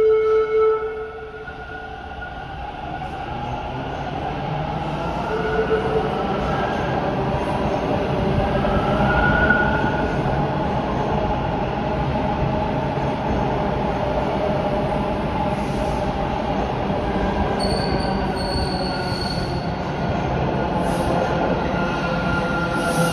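Bombardier T1 subway train running through an underground station, its wheels squealing in short high tones. The rumble dips about a second in, builds over the next several seconds, then holds steady.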